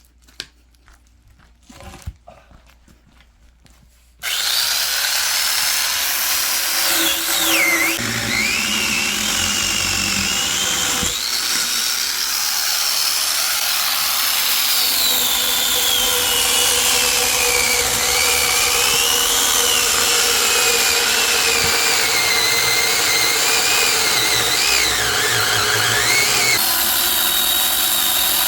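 Chainsaw cutting firewood, starting abruptly about four seconds in after a few faint clicks, its whine rising and falling as the load changes.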